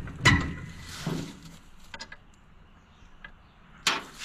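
Scattered knocks and clanks of metal parts being handled, about five in all. The strongest comes about a quarter second in and rings briefly with a thin metallic tone.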